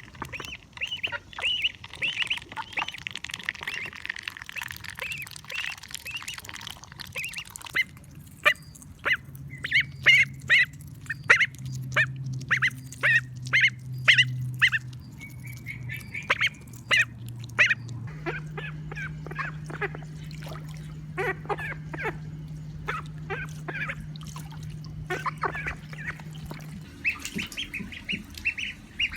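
Female call ducks quacking over and over in quick runs of short, high calls, densest in the first few seconds and then more spaced out.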